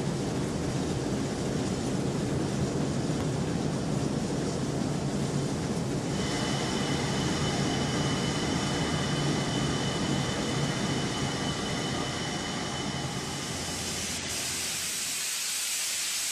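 Steam locomotive working: a dense, heavy rumble, joined about six seconds in by a faint steady high whine. Near the end a hiss of escaping steam takes over as the rumble falls away.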